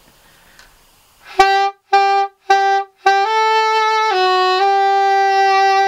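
Soprano saxophone playing a short phrase of a simple melody. After about a second and a half of quiet come three short repeated notes on one pitch, then a note that steps up, dips, and settles into a long held note.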